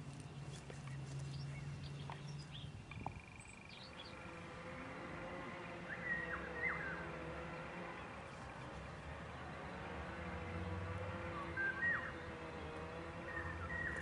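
Birds calling in short chirps, a few at a time in small clusters, over a steady low hum.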